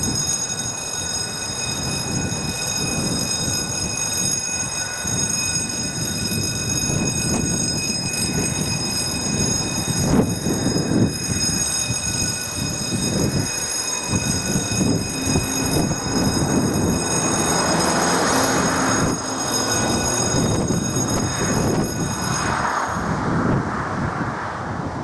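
Passenger train passing over a level crossing, with rumbling wheels, a few sharp knocks about ten seconds in and a hissing rush later on. Above it the crossing's warning signal sounds as one steady high tone, cutting off near the end.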